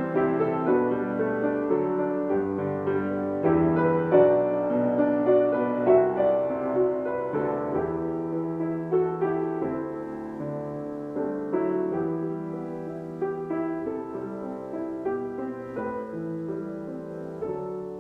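Solo piano playing a slow hymn tune, its notes gradually growing softer through the passage.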